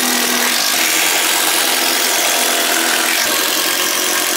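Cordless drill-driver running steadily under load, driving a long screw down through a treated-timber top into a leg.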